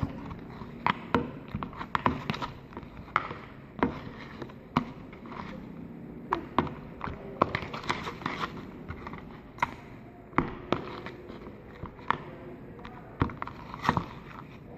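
Sticky homemade slime being stirred and worked in a cup, making irregular wet clicks and pops several times a second.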